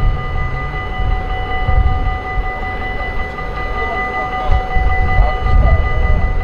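Dutch level-crossing warning bells ringing without a break while the barriers are down, at a steady pitch, over a loud, uneven low rumble.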